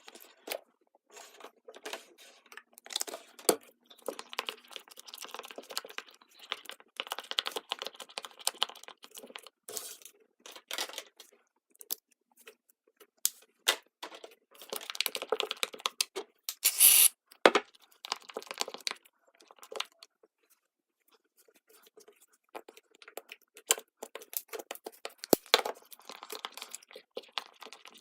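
Irregular clicking, scraping and crinkling of hands mixing and handling slime ingredients in a container, with a quieter stretch past the middle.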